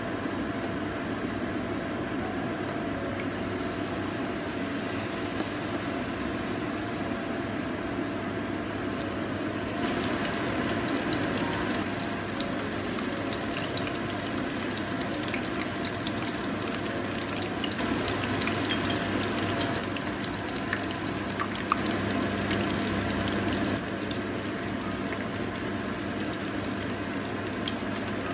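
Battered cauliflower florets deep-frying in hot oil: a steady sizzle with fine crackling, which grows busier about a third of the way in.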